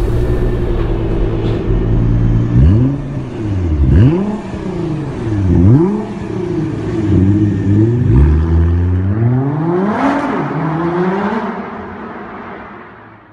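A car engine revving in a string of blips, its pitch swooping up and falling back several times, then one longer climb to high revs. The sound then fades out near the end.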